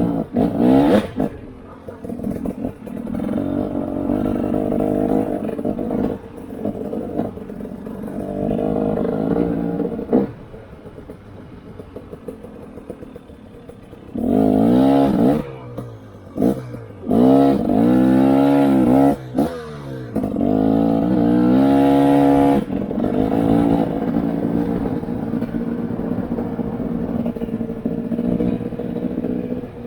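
Off-road vehicle engine on a trail ride, revving up and easing off again and again as the throttle is worked. About a third of the way in it drops to a quieter low run, then gives several hard rising revs before settling back to a steadier run.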